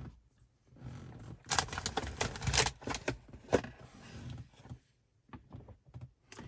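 Rustling of wiring and plastic being handled and pushed into a car dashboard behind an aftermarket head unit, with a run of sharp clicks and knocks about a second and a half in.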